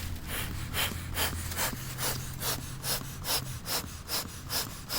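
Beekeeper's smoker bellows being pumped in a steady rhythm, about two and a half puffs of air a second, to get the fuel in the smoker burning.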